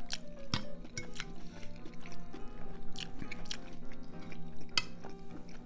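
Soft background music of steady held notes, over which come scattered sharp clicks and wet mouth sounds of someone eating pasta with a fork.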